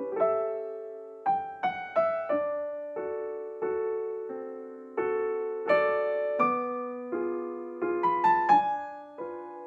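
Background piano music: a slow, gentle melody of struck notes and chords, each ringing out and fading before the next.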